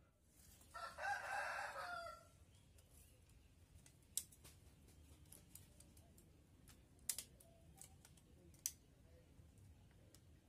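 A rooster crowing once, a single call of about a second and a half. After it come a few scattered sharp clicks.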